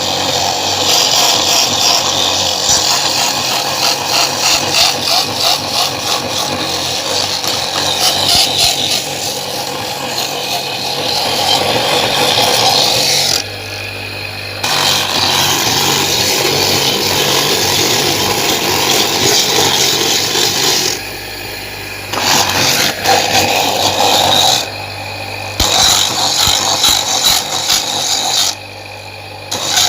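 Electric coconut grater (mesin kuhur): its motor-driven spinning grater head rasps the flesh out of a coconut half with a loud scraping noise. There are four short breaks where only the motor's steady low hum remains.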